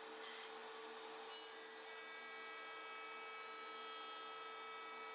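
Faint steady hum with several thin high tones held throughout, unchanging.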